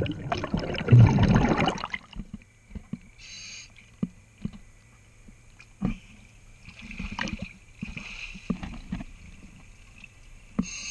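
Underwater, a scuba diver's exhaled bubbles rushing loudly for about the first two seconds. Then come quieter scattered knocks and clicks, with a couple of short high hisses.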